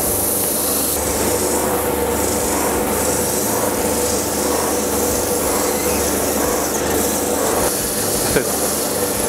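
JET JOSS-S oscillating spindle sander running while a rubber cleaning stick is pressed against its spinning abrasive sleeve: a steady rubbing hiss over the motor hum. The stick is clearing a sleeve clogged and glazed by burning.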